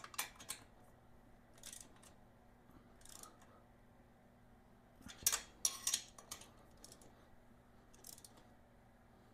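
Hand ratchet clicking in short, scattered bursts, with a denser run of clicks about halfway through, as the exhaust header nuts are tightened to crush the exhaust gasket.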